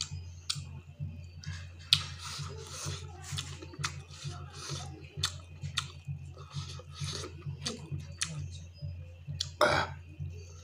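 Close-miked chewing and lip-smacking as meat is eaten off the bone by hand: a busy run of short wet smacks and sharp clicks, with a couple of louder ones, over a steady low electrical hum.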